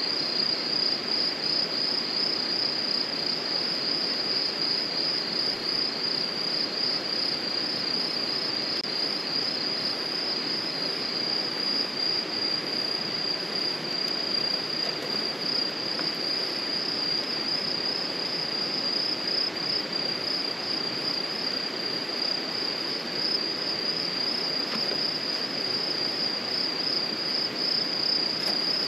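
Crickets chirping in a continuous high, finely pulsing trill, over a steady low hiss.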